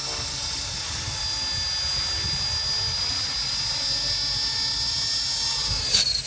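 Align T-Rex radio-controlled helicopter running, a steady high-pitched motor whine over rotor noise that drops a little in pitch near the end. A single sharp click comes about six seconds in.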